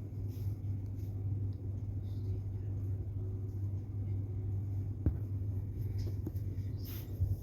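Harbor Breeze Centerville ceiling fan running, its motor giving a steady low hum, with a few faint clicks near the end.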